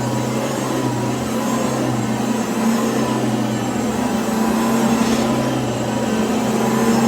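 Cordless stick vacuum running steadily with a constant motor hum and the rush of air through it.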